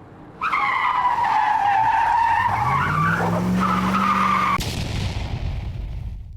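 Car tyres squealing in a skid while the engine revs up beneath them. The squeal cuts off sharply about four and a half seconds in, and the engine sound fades away.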